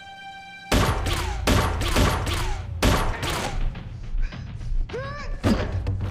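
Fight sound effects: a held music note cuts off about a second in, and a rapid string of heavy punch and body-blow impacts follows, several hits a second.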